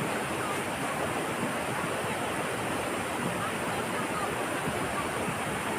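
River water rushing steadily, an even flowing noise with no breaks.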